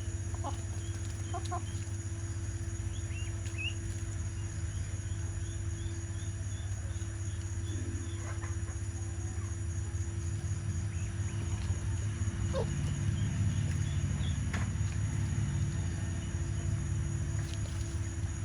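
Chickens clucking now and then over a steady low hum, which gets louder about two-thirds of the way through.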